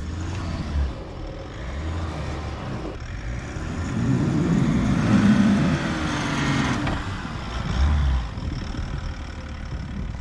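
GMC Sierra AT4 pickup's engine revving under load as it pulls a stuck vehicle on a recovery strap, with the tyres churning in snow. The engine swells about four seconds in and eases off about seven seconds in.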